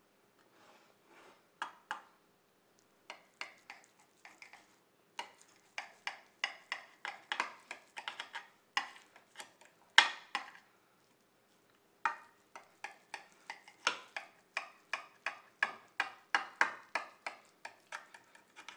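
Sharp kitchen knife cutting seitan dough in a glass baking dish: runs of short clicks and scrapes as the blade presses through and meets the glass bottom, with brief pauses between cuts.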